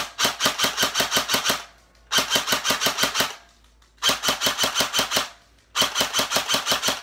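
G&P M4 airsoft electric gun with a JG Red motor on a 9.6 V battery firing on full auto: four bursts of rapid, evenly spaced shots, each a little over a second long, with short pauses between.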